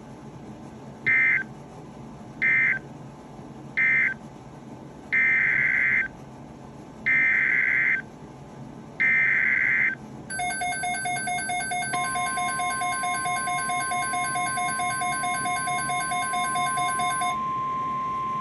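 NOAA Weather Radio SAME data bursts, a harsh two-pitch digital screech: three short end-of-message bursts, then three longer header bursts for the next alert. About ten seconds in, a fast-pulsing electronic alert beep starts. Two seconds later the steady single-pitch warning alarm tone begins, and it carries on after the beep stops near the end.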